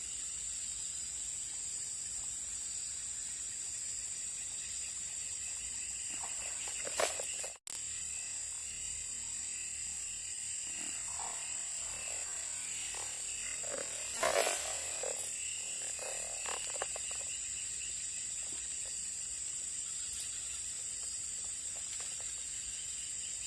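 Steady chorus of insects and frogs, a high, even drone, with a few brief louder noises about seven and fourteen seconds in.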